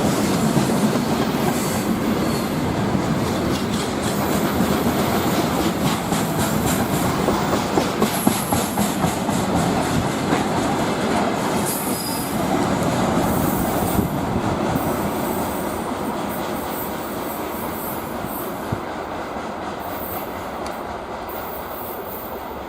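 Freight train wagons rolling past at speed, the wheels clattering over rail joints with brief high wheel squeals. The noise fades gradually through the second half as the train draws away.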